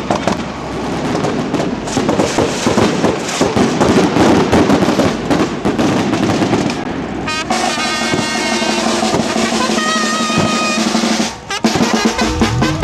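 Marching brass band playing in the street: snare drum rolls and drums at first, then trumpets and sousaphone join on held notes about halfway through.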